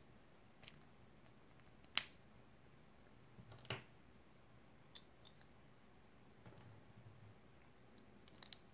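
Small hard plastic parts of a Playmobil figure clicking and snapping as they are handled and pressed together: a handful of short sharp clicks with quiet between, the loudest about two seconds in and a quick double click near the end.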